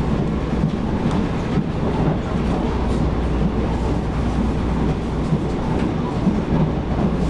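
Running noise of a Taiwan Railways EMU700 electric multiple unit in motion, heard from inside the passenger car: a steady rumble of wheels and running gear on the rails.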